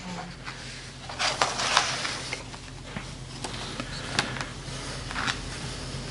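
Loose sheets of paper rustling and being shuffled close to a lectern microphone, in several short bursts, the busiest between one and two seconds in. A low steady hum runs underneath.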